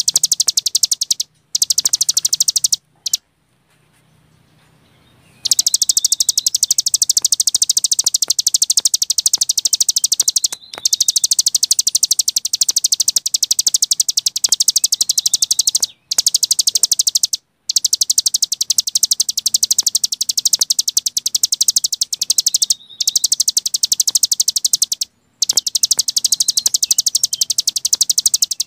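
Cici gunung songbird singing its continuous rapid-fire song of high, fast-repeated chirps in long unbroken runs. The runs are broken by short pauses, the longest about three seconds in.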